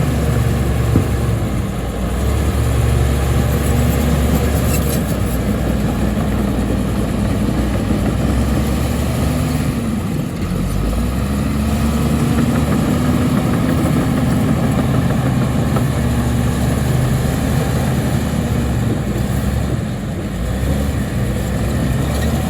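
Heavy diesel earthmoving-machine engine running steadily, its pitch dipping and then rising and easing back about halfway through.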